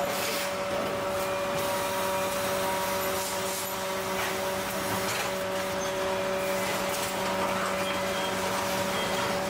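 Car assembly line ambience: a steady machinery hum made of several constant tones over a noisy haze, with faint clicks and light knocks now and then.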